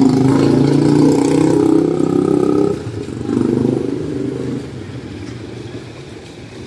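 A motor vehicle's engine passing close by, loud for the first few seconds and then dropping away, with a second, fainter engine swelling briefly about three seconds in before the traffic noise fades.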